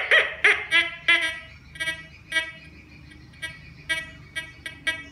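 Metal detector's audio tone beeping in short pitched pulses, about three a second, as a steel file is waved over the search coil: the detector signalling a metal target. The beeps pause for about a second midway, then resume.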